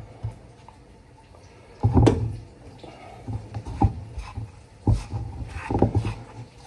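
Hands working raw chicken pieces through flour in a ceramic bowl, with several dull knocks as the pieces and bowl bump against the bowl and the wooden counter.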